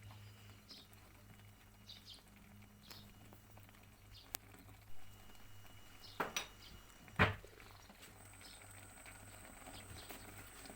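A few light, sharp knocks over a low steady hum, with faint short high chirps about once a second.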